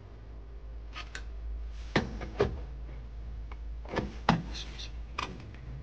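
Sharp plastic clicks and knocks from a gauge pod being handled and fitted under a dashboard, about seven in all, the loudest about two and four seconds in, over a low steady hum.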